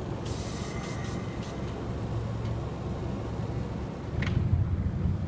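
Kumamoto Electric Railway 6000 series electric train pulling away from the platform: a steady low rumble of motors and wheels on the rails, with a short hiss near the start. About four seconds in there is a sharp click, and the low rumble gets louder.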